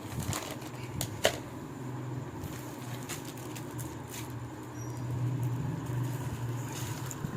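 Rustling, scratching and light clicks of gift packaging and small items being handled and packed away, with one sharp click about a second in. A low steady hum runs underneath from about a second and a half on.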